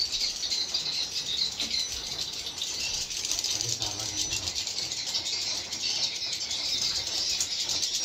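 Many swiftlets calling inside a swiftlet house: a dense, continuous rattling twitter of rapid clicks and chirps.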